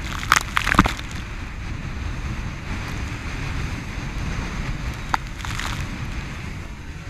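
Wind buffeting the microphone and water rushing along the hull of a Volvo Ocean 65 racing yacht sailing fast, with bursts of spray striking the deck in the first second and a single sharp click about five seconds in.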